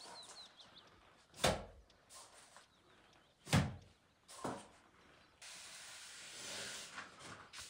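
Three dull thumps, the second the loudest, then a steady hiss that starts about five and a half seconds in. A few short bird chirps come at the start.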